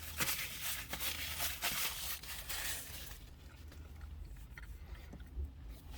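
Handling noise as a camera is turned around by hand: rubbing and scraping against the microphone with small knocks for about three seconds. It then goes quieter, leaving a few faint ticks over a low steady hum.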